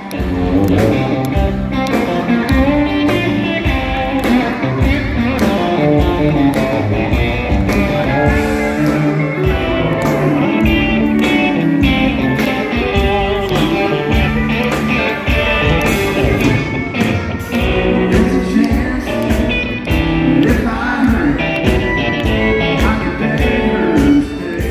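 Live country band music with electric guitar to the fore, heard loud from within the concert crowd.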